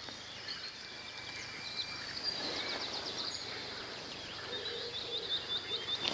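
Small birds singing: runs of quick, high, repeated chirping notes around the middle and again near the end, over a faint steady background.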